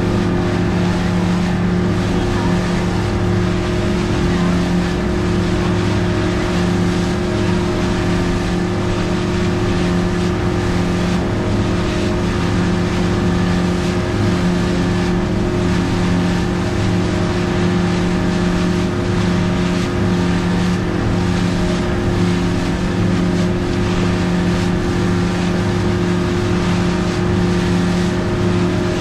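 Engine droning at a steady, unchanging speed, an even hum that holds throughout.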